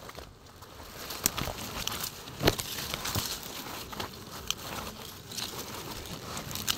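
Dry grass stems and twigs rustling and crackling as they are pushed aside by hand, with a few sharp snaps and clicks scattered through.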